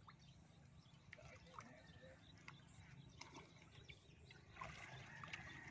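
Near silence: faint outdoor background with a few soft ticks and faint chirps.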